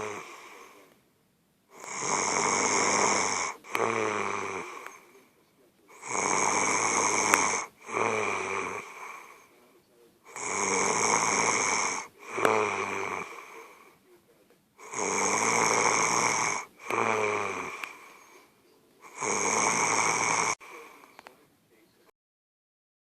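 A person snoring loudly, five snores at an even pace about four to five seconds apart, each a long buzzing snore followed by a shorter, weaker one. The snoring stops near the end.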